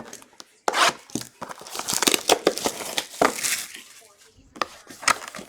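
Wrappers of 2022 Playbook NFL trading card packs being torn open and crinkled: a dense run of crackling rustles and sharp tears, loudest in the first few seconds.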